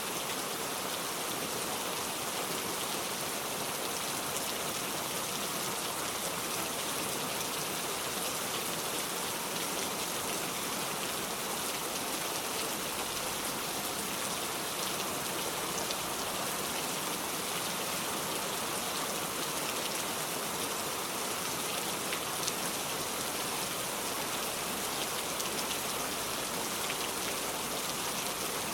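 Steady rainfall: an even hiss of rain with many small drops pattering on a surface, unchanging in level.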